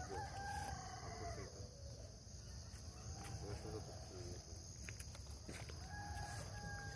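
A rooster crowing twice: one long crow at the start and another near the end.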